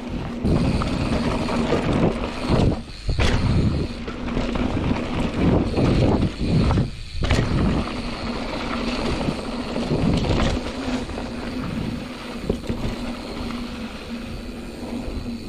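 Mountain bike ridden along a dirt trail: wind buffeting the microphone over the rumble of tyres and the bike, loud and uneven, with two brief lulls about three and seven seconds in.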